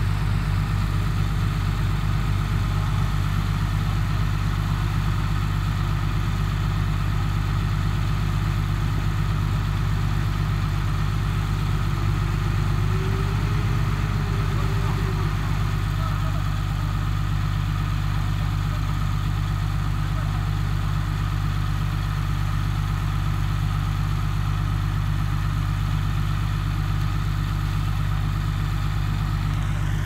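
Heavy construction machine's engine running steadily at even revs: a continuous low drone that doesn't rise or fall.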